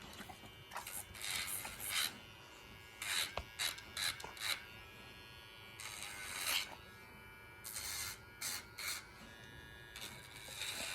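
YABIFE rechargeable electric pet nail grinder running with a steady buzz, broken by about eight or nine short scratchy bursts as its grinding wheel is pressed against a dog's toenail.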